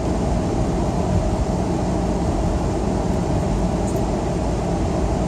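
Steady car road noise: a low, even rumble with a faint constant hum and no distinct events.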